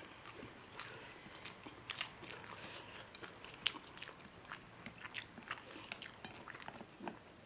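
Close-up eating sounds: chewing with many small, sharp crunches and mouth clicks.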